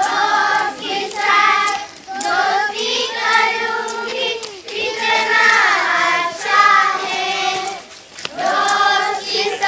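A group of voices, children's among them, singing a devotional song together in phrases of a second or two, with short breaks between phrases.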